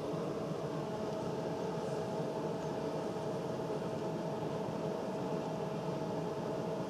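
Steady mechanical hum with one constant pitched tone running through it, unchanging in level.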